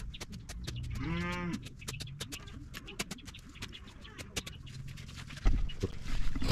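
A slasher blade cutting grass in quick strokes, heard as a run of short swishes and clicks. A farm animal calls once, one drawn-out rising-and-falling call about a second in. Near the end there is a loud thump.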